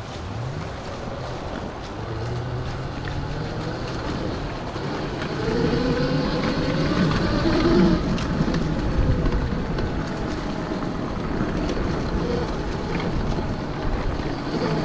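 72 V electric motor of a Kawasaki KX 85 dirt bike converted to electric, whining as the bike is ridden: its pitch rises and falls with speed, with the loudest surge of acceleration about 8 seconds in. Wind noise rushes over the microphones throughout.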